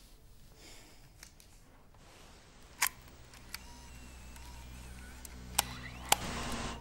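Sharp mechanical clicks of a camcorder as a videotape cassette is loaded and the controls are worked: one click about three seconds in, a lighter one just after, then two more near the end, the last followed by a brief hiss. A low steady hum grows underneath from about halfway.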